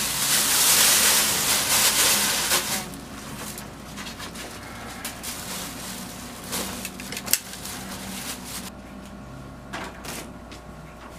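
Clear plastic sheeting rustling and crinkling loudly as it is wrapped and tucked around a body on a bed, dying down after about three seconds. Quieter handling follows, with a few scattered clicks and knocks, the sharpest about seven seconds in.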